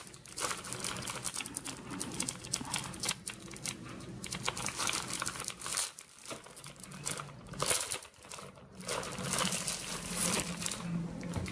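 Clear plastic packaging crinkling and rustling in irregular bursts as hands handle and unwrap a plastic-wrapped sheet of printed paper, with a couple of brief pauses.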